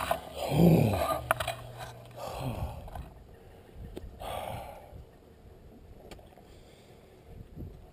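A cyclist, stopped, breathing hard: a heavy breath near the start, then breaths about every two seconds that grow fainter.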